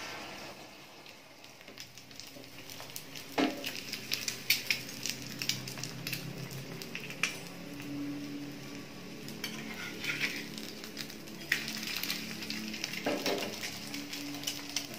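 Egg sizzling as it fries in a small pan on a gas stove, with a few sharp clinks of pan and utensils now and then.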